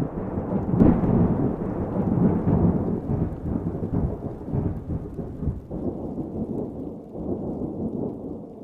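Close lightning strike: a sharp crack about a second in, then rolling thunder rumbling on and slowly fading.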